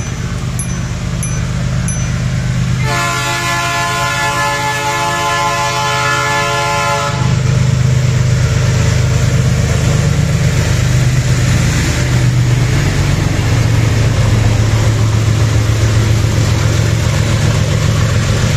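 GE ES43BBi diesel-electric freight locomotive sounds one long horn blast from about three seconds in, lasting about four seconds. Then its diesel engine runs loud and steady as it passes close by, with the train rolling behind it.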